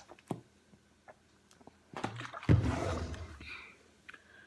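A single loud, deep burp starting about halfway through, lasting around a second and trailing off.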